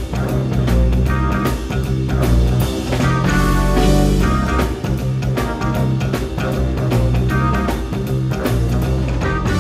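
Rock-style theme music with electric guitar and a steady beat, loud and continuous.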